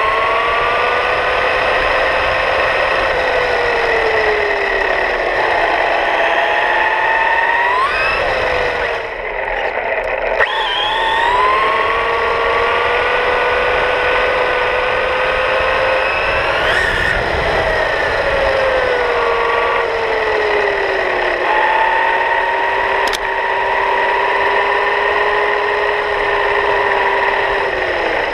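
Losi TLR 22T electric RC stadium truck's motor and drivetrain whining as it drives, over a hiss of tyres on asphalt. The pitch rises and falls with speed: it holds steady for stretches, drops away around ten seconds in, then sweeps sharply up and back down a little past halfway. A single click comes about three quarters of the way through.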